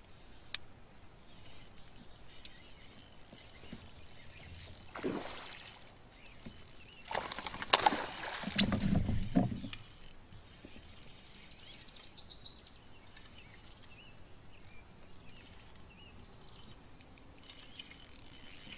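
Spinning reel being wound while a smallmouth bass is fought from a kayak. There are a few louder noisy bursts, the loudest about eight seconds in, and birds call faintly in the background.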